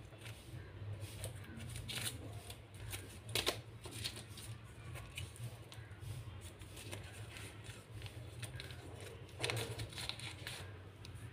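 Scissors snipping through a small folded paper packet, followed by paper crinkling and rustling as it is unfolded by hand, with a few sharper snips and crackles, the loudest near the end. A steady low hum runs underneath.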